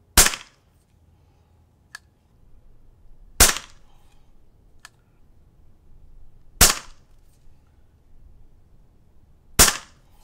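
A .22 PP700SA pre-charged pneumatic air pistol firing four shots about three seconds apart, each a sudden shot with a brief ring after it. Two faint clicks come between the early shots.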